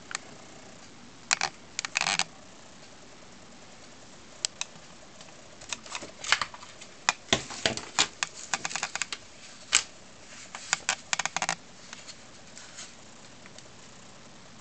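Handling noise: irregular sharp clicks and taps of the compact camera and magnifying glass being moved and repositioned by hand. A few clicks come at first, then a dense clattering run in the middle that thins out near the end.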